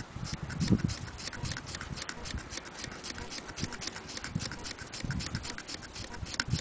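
Antique Willcox & Gibbs chain-stitch sewing machine running, with a quick, even clicking of about ten clicks a second and softer low knocks mixed in.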